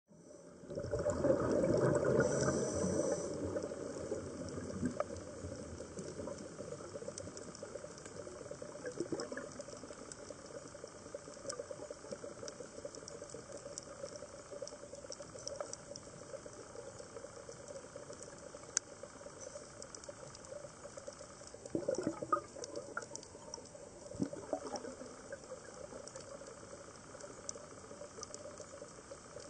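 Underwater sound through a camera housing: bursts of bubbling and gurgling from a scuba diver's regulator exhalations, the longest about a second in and two more near the end, over a low steady water hiss with scattered faint clicks.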